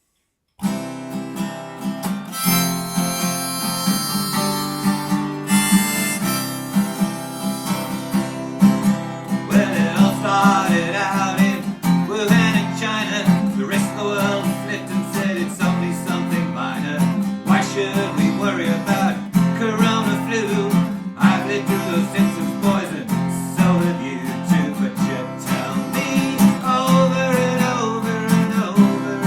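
Acoustic guitar strumming with a harmonica playing held notes over it, starting suddenly about half a second in: an instrumental folk-rock introduction.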